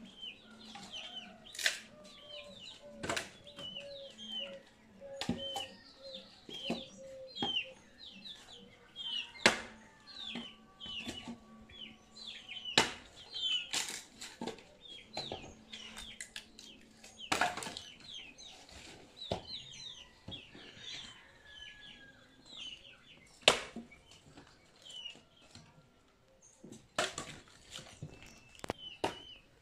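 Axe chopping firewood: sharp, irregular strikes into wood, a few seconds apart. Small birds chirp steadily in the background.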